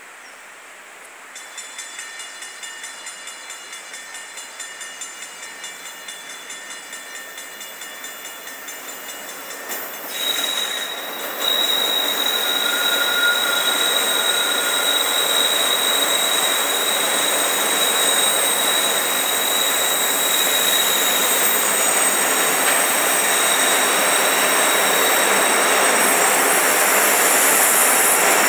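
Wheel screech from a loaded Norfolk Southern coal train rounding the curved track. A shrill, pulsing squeal starts about a second in, then grows much louder about ten seconds in into a steady piercing screech as the train nears.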